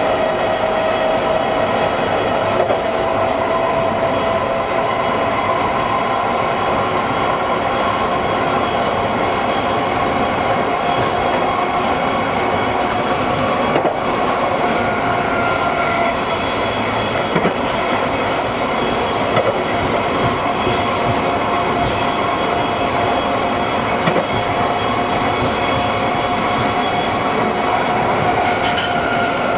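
1973 Stock Underground train's DC traction motors whining steadily while running, heard from inside the car. The whine rises slightly in pitch over the first several seconds and then holds, over a constant wheel-and-rail rumble with occasional clicks from rail joints.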